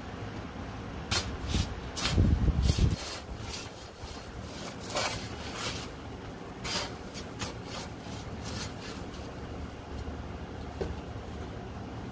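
A steel digging bar jabbed several times into a paper sack of post-hole concrete mix to break it open, giving sharp stabs and paper crunching, with one heavier, longer thud about two seconds in.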